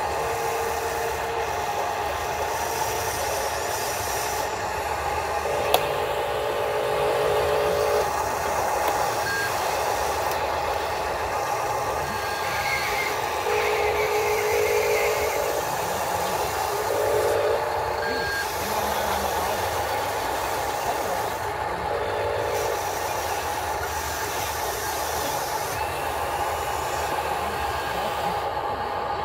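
Radio-controlled hydraulic excavator's electric pump and motors whining steadily, with repeated stretches of a lower, stepped whine lasting a second or two as the boom and bucket are worked. One sharp click about six seconds in.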